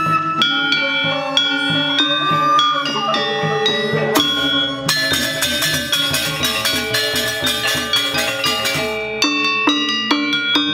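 Sasak gamelan playing: saron metallophones struck in quick ringing notes over kendang drums, with a bamboo flute line in the first few seconds. About four seconds in the playing turns dense and fast for some five seconds, then clear separate metallophone strokes return near the end.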